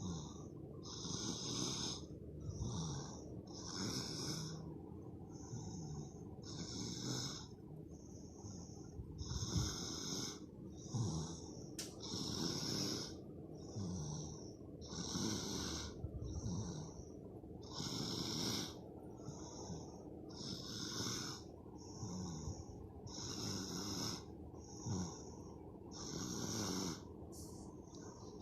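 A sleeping baby snoring, with a breathy snore every second or two at a steady, rhythmic pace.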